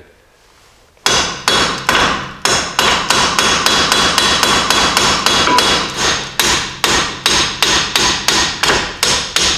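A hammer striking the head of a bolt threaded into a Jeep Cherokee XJ front unit bearing, in a steady run of sharp metallic blows about two to three a second, starting about a second in. The blows drive the unit bearing off the steering knuckle, breaking its rust bond.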